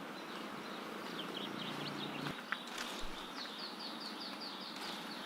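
Outdoor ambience with two runs of rapid, high, short falling chirps, about five a second, over a steady background hiss.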